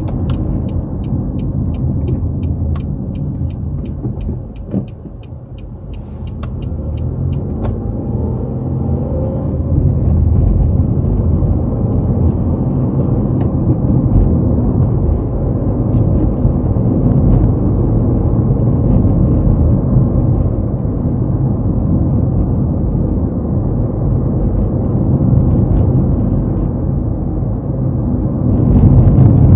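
Car cabin noise: steady low engine and tyre rumble, with the turn-signal indicator ticking evenly, about three ticks a second, for the first seven or so seconds. The rumble dips about five seconds in, then comes back up and grows louder near the end.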